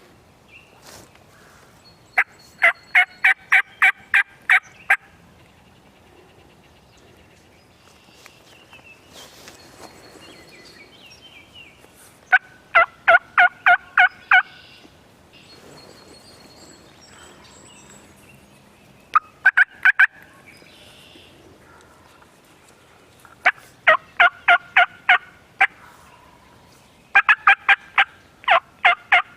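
Wild turkey calling: five loud runs of rapid, evenly spaced notes, each run lasting one to three seconds, with faint songbird chirps between them.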